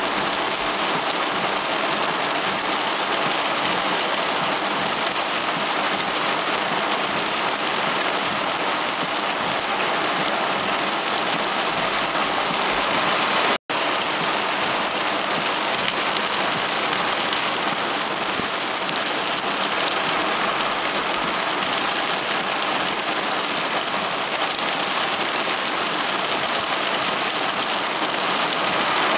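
Heavy thunderstorm rain hissing steadily, heard from inside a car, with a momentary drop-out about halfway through.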